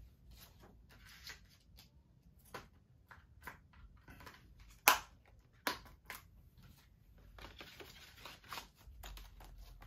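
Plastic Blu-ray case and discs being handled and packed up: scattered light clicks and snaps, two sharper clicks about five and six seconds in, with rustling of packaging between, loudest in a longer stretch near the end.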